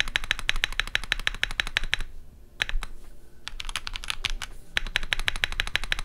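Fast typing on a Keychron Q1 Pro mechanical keyboard with Keychron Banana switches, its space bar fitted with a Gateron Baby Kangaroo switch. It is a quick run of keystrokes, about ten a second, with a short break about two seconds in. The space bar still sounds a little pingy.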